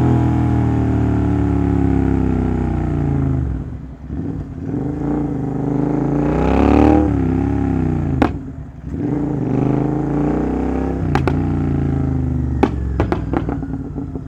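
Royal Enfield GT 650's 648 cc parallel-twin engine through an aftermarket exhaust, engine speed falling off, then revving up and dropping back twice. A few sharp cracks come as the revs drop, mostly near the end, the exhaust popping on the overrun.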